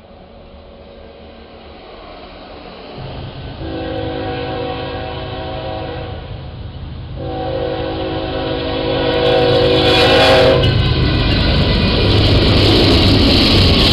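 Approaching train sounding its chime horn in two long blasts of about three seconds each, over a low rumble that grows as it nears; in the last few seconds the train passes close by loudly.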